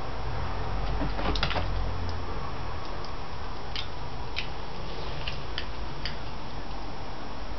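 A Shiba Inu's claws clicking on a parquet floor as it moves about: a short cluster of clicks about a second and a half in, then single clicks spread over the next few seconds, over a steady hiss.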